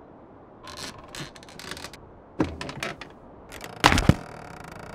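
Quick bursts of clicking and rattling, a knock about halfway, then a loud double thump near the end.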